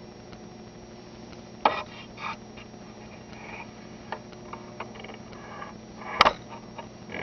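Room tone: a steady low electrical hum with a few scattered clicks and knocks, the sharpest near the start and about six seconds in.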